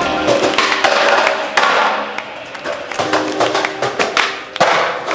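Background music with sharp thuds and clacks from a skateboard landing and hitting the ground.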